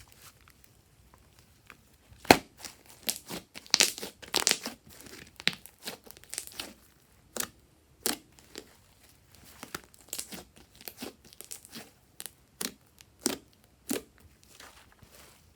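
Fluffy slime being squished and stretched by hand, giving irregular sticky crackles and pops, the loudest a little over two seconds in.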